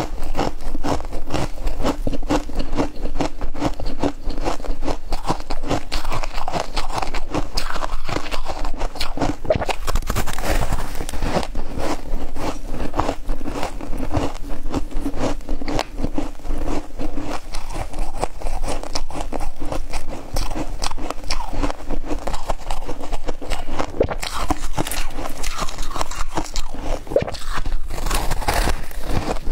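Freezer frost being bitten and chewed close to the microphone: a continuous run of crisp, crackling crunches as the packed ice crystals break between the teeth.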